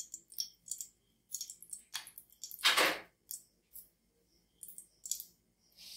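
Metal kitchen utensils clinking and clattering: a spoon and steel pans or containers being handled while a tempering is prepared. Scattered short clicks, with one louder clatter about two and a half seconds in.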